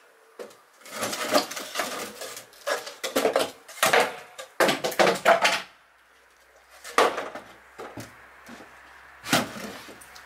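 Wooden planks boarding up a window being knocked and pried with a long pole: a rapid series of clattering wooden knocks and scrapes for the first half, then a couple of single knocks later on.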